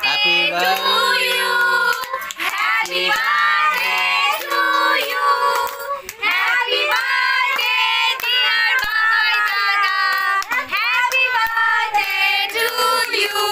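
Several women singing together in high voices while clapping their hands along.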